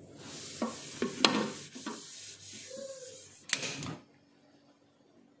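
Utensil knocking and scraping in a bowl as beaten egg is mixed with chopped vegetables: a few sharp clinks over a scraping hiss, stopping about four seconds in.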